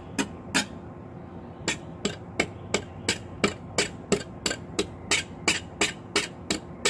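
A steel trowel slapping and skimming thin-set mortar onto a concrete block wall in quick, even strokes, a sharp slap about three times a second, with a pause of about a second near the start.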